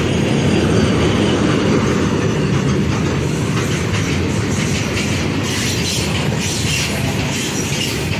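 Freight train wagons rolling past close by at speed: a steady, loud rumble of steel wheels on the rails, with sharp wheel clacks coming thicker in the second half.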